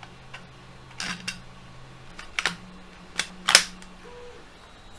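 Sharp clicks and knocks of a butt stock being fitted onto the rear of an HPA airsoft rifle: about five in all, the loudest about three and a half seconds in.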